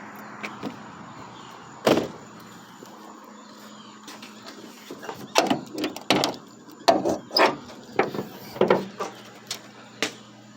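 Handling noises in a truck: one sharp knock about two seconds in, then a quick run of clicks and knocks and a last one near the end, over a steady low hum.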